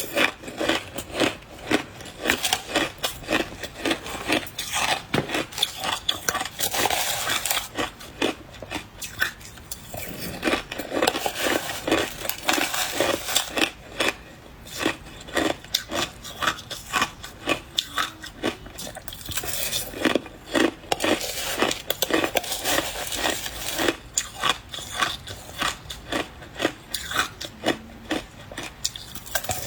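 Close-miked crunching of soft white ice being bitten and chewed, rapid crisp crunches several a second with brief pauses.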